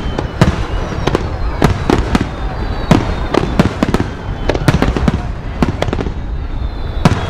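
Fireworks display: aerial shells and underwater fireworks bursting in quick, irregular succession, sharp bangs about two to three a second over a continuous low rumble.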